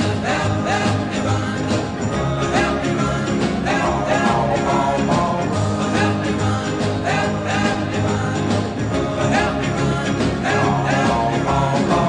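Background music: an upbeat 1960s rock and roll song with a steady beat.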